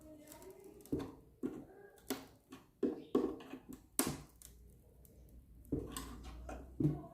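Scattered knocks and clicks of hands and a tool working the plywood panel loose from an old wooden speaker cabinet, about eight sharp knocks at irregular intervals.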